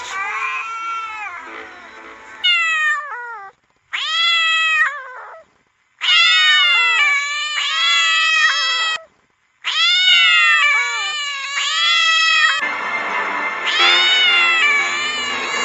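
Domestic cat yowling: a series of long, drawn-out wails, each rising and falling in pitch and lasting one to three seconds, with short breaks between them. Music plays underneath for the first couple of seconds and again near the end.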